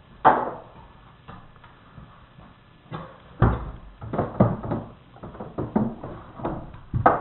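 A child's small wooden chair being moved and set down, making a string of wooden knocks and bumps. One sharp knock comes just after the start, then a run of bumps from about three and a half seconds to the end.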